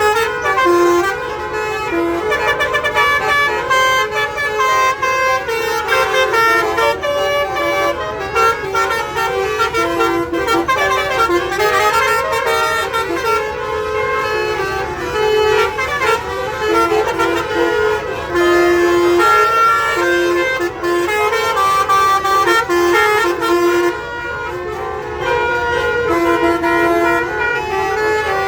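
Indonesian bus's multi-tone telolet (basuri) horn playing melodic tunes, its notes stepping from pitch to pitch almost without a break.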